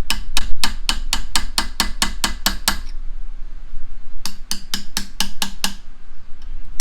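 Rapid hammer taps on a metal punch, about five a second, driving the threaded collar of a Reed bench vise round to unscrew it. The tapping stops for about a second and a half midway, then starts again.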